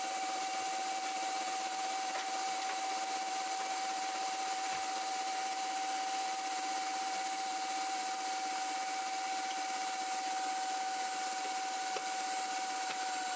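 KitchenAid Classic Plus stand mixer running with its wire whisk attachment, beating egg whites toward stiff meringue peaks: a steady motor whine with the whisk's whirring hiss in the steel bowl.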